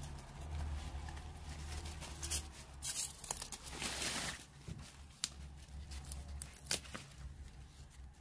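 Soft rustling and crinkling with scattered sharp clicks, loudest about three to four seconds in, over a low steady hum.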